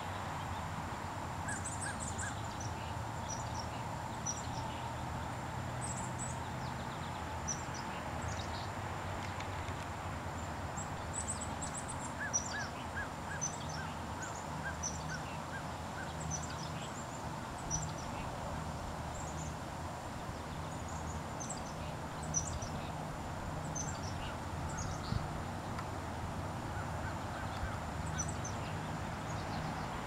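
Marsh ambience of wild birds chirping and calling: many short, high chirps scattered throughout, and a run of lower repeated notes about twelve seconds in, over a steady low hum.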